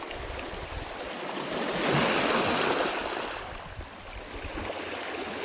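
Small sea waves breaking and washing up over the rocks and pebbles of the shoreline. One surge swells up about two seconds in and drains back a couple of seconds later.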